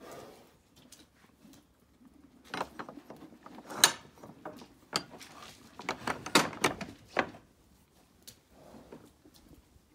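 A run of sharp wooden knocks and rattles from the timber sheep-pen rails and hurdles, starting about two and a half seconds in and ending a little after seven seconds, with the loudest knocks near the middle.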